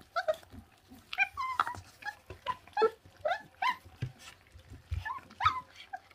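Twenty-four-day-old puppies squeaking and grunting in short, high whines as they tear at raw meat on the bone, with sharp clicks of chewing and bone crunching in between.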